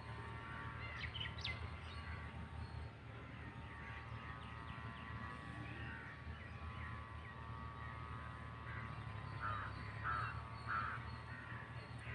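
Birds calling outdoors: quick chirps about a second in, then three short calls close together near the end, over a steady low background hum.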